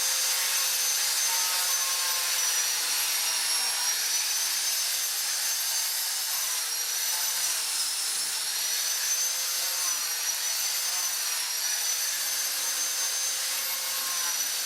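Electric power tool running steadily on wood, a hissing rush with a high whine that wavers slightly in pitch.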